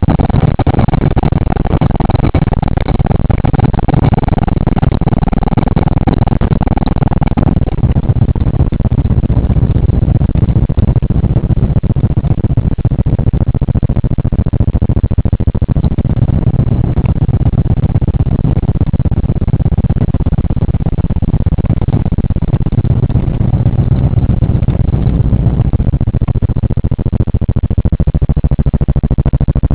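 Steady low rumble of a 1979 Oldsmobile's engine and tyres, heard from inside the cabin while driving. A higher steady hum runs alongside it for roughly the first seven seconds, then stops.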